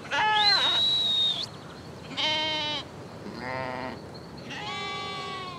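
Schoonebeeker sheep bleating: four separate bleats of different pitch from several animals, the third one lower. The first bleat is the loudest.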